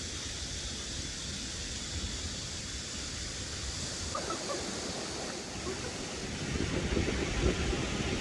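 Mountain stream water rushing steadily; about halfway through it turns choppier and louder.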